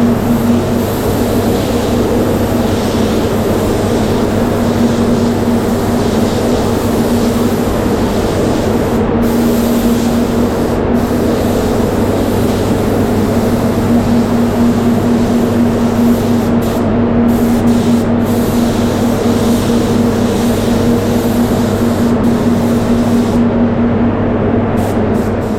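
Satajet X5500 HVLP spray gun hissing as it sprays waterborne base coat, over the steady hum of a spray booth's extraction fans. The high hiss drops out briefly several times in the second half, as the trigger is let off between passes.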